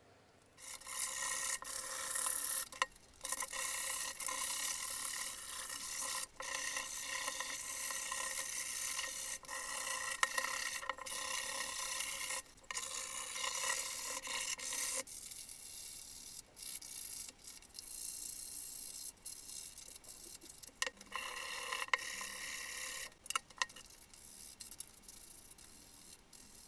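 Sandpaper rubbed back and forth by hand over the rusty steel breast plate of an old breast drill to take the rust off, a continuous scraping. It gets quieter and more broken about halfway through, with a few louder spells near the end.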